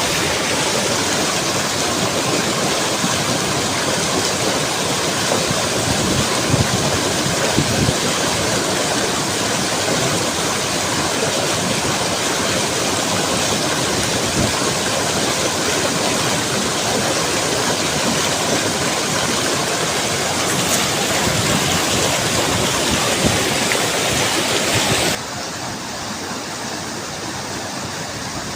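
Mountain stream rushing, a steady, dense wash of water noise. About 25 seconds in it drops suddenly to a quieter level.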